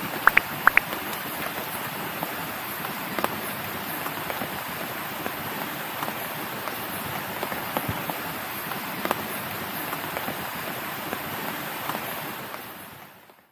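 A steady, even rush of water, with a few sharp ticks in the first second and now and then after. It fades out near the end.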